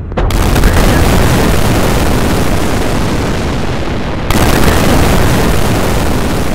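Rocket engine sound effect for a Saturn V in flight: a loud, steady rushing rumble that starts abruptly just after the beginning, then jumps suddenly louder about four seconds in.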